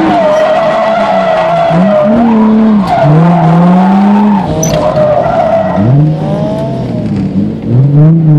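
Nissan 350Z's V6 engine revving up and down with tires squealing through a tandem drift, heard from inside the car. A long, steady tire squeal holds through the first half, then the revs rise and fall several times with shorter squeals.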